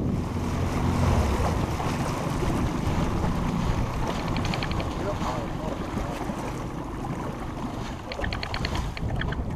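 Wind buffeting the microphone over choppy water slapping against a small boat's hull. A burst of rapid clicking, about a dozen ticks a second, comes about four seconds in and again near the end.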